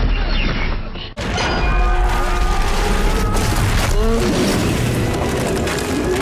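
Action-scene soundtrack: a heavy boom as the ground is blasted up, over dramatic score music, after an abrupt cut about a second in.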